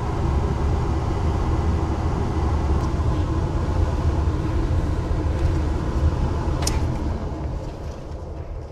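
Gas furnace blower fan running with a steady low rumble; a sharp click comes near the end, and then the rumble fades away.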